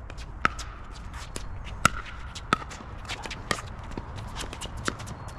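A doubles pickleball rally: paddles strike a hollow plastic pickleball in sharp, ringing pocks, about five loud ones roughly a second apart. Fainter ball bounces and shoe scuffs on the hard court fall between them.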